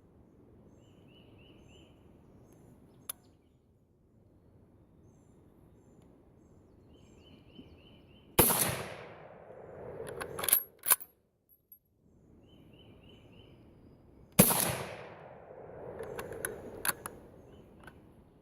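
Two .223 Remington rifle shots about six seconds apart, each followed a couple of seconds later by two sharp metallic clicks. The cast-bullet loads of 8.8 grains of Green Dot fire but do not cycle the action.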